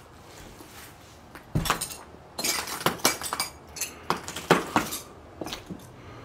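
Footsteps crunching and clinking over debris and litter on a bare floor, a quick run of sharp cracks and clinks starting about a second and a half in.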